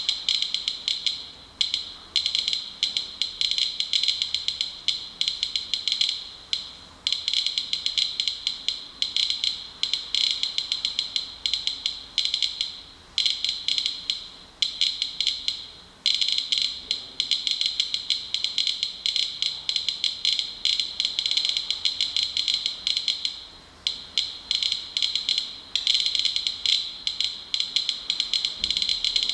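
Medcom Inspector Geiger counter clicking for each detected count, fast and irregular, in random clusters with brief lulls, at about 535 counts per minute. The rate comes from a rain-soaked tissue sample and is several times the 112 CPM background, which the owner attributes to radon washout in the rain.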